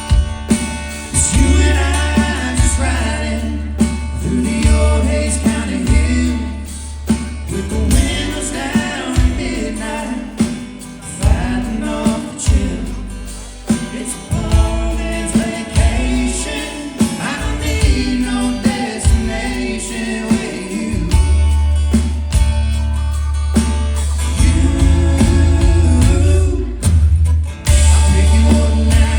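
Live band playing a song: voices singing over guitar, heavy bass and drums.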